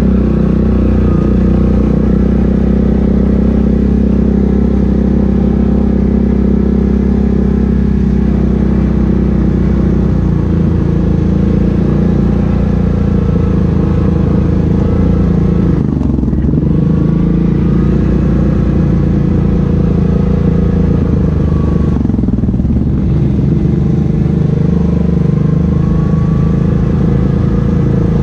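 ATV engine running steadily under throttle as the quad rides along a dirt trail, heard from the rider's seat. The revs drop briefly and pick up again twice, around the middle and about two-thirds of the way through.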